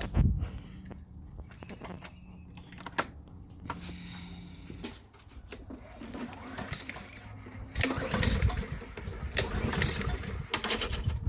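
Honda four-stroke lawn mower engine being started on a replacement spark plug and running. It is low and steady at first, then grows louder and uneven with sharp surges from about six seconds in. The old spark plug was the cause of its earlier no-start.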